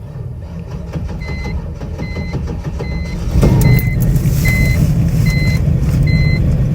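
A car's warning chime beeping steadily, about once every 0.8 s, while a carbureted 5.0 V8 starts about three and a half seconds in and settles into a low, rumbling run.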